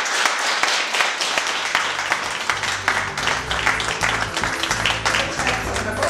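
A small audience applauding. About two seconds in, music starts up beneath the clapping.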